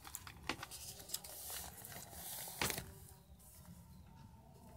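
Notebook paper being handled as a page is turned to a fresh sheet: a soft rustle with two light clicks or taps, about half a second and two and a half seconds in.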